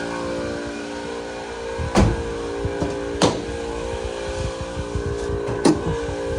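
Electric air pump (tyre inflator) running with a steady motor hum, broken by three sharp knocks.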